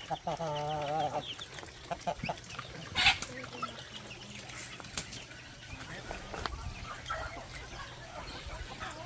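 Chickens clucking around their feed, with a wavering call in the first second and a single sharp click about three seconds in.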